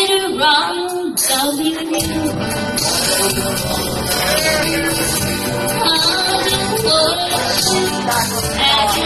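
A woman singing into a microphone, amplified, over a recorded backing track; the bass and drums of the track fill in about two seconds in.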